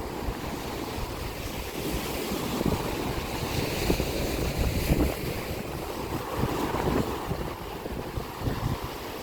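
Ocean waves washing onto the shore, swelling and ebbing, with wind buffeting the microphone.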